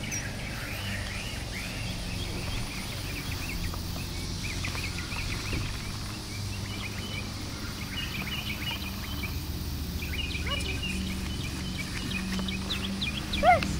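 Outdoor ambience of small birds chirping in many short, quick calls, over a steady low hum. Near the end there is one brief, loud, high-pitched cry.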